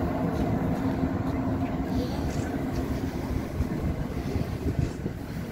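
A docked ship's machinery running: a steady low rumble with a droning hum that fades out about halfway through.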